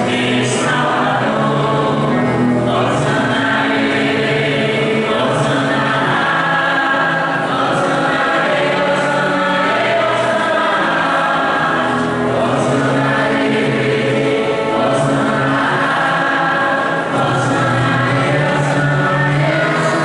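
A choir and congregation singing a hymn together, many voices holding long notes without a break.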